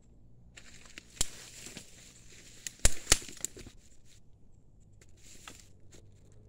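Rustling and crackling in dry grass and leaf litter, with a few sharp clicks. The loudest are a pair near the middle, and a shorter patch of rustling comes near the end.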